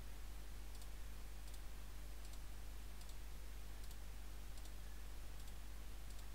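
Computer mouse button clicking faintly about once a second, the clicks of placing line points, over a steady low hum.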